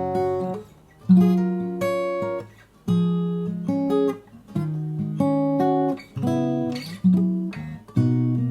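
Cort CJ5X acoustic guitar playing a chord progression, a new chord struck about every second and left to ring between changes.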